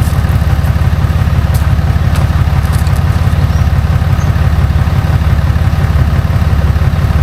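Ram 2500's Cummins inline-six turbo diesel idling steadily with an even, low throb.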